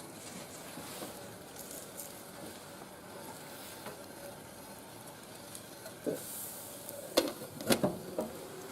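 Wood fire burning in a barbecue grill: a steady hiss and sizzle with scattered small crackles, and a few sharper snaps about six to eight seconds in.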